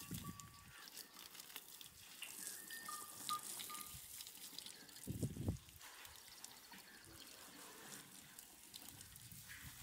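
Water trickling and splashing in a concrete water trough where water buffaloes are drinking, with a short louder low thump about five seconds in.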